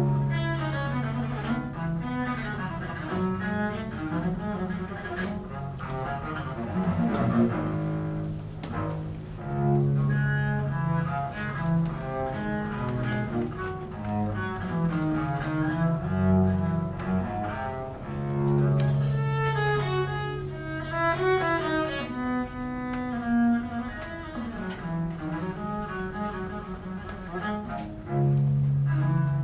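A solo cello-sized bowed string instrument playing unaccompanied. Long held low notes alternate with quicker, ornamented phrases higher up, and it returns to a sustained low note near the end.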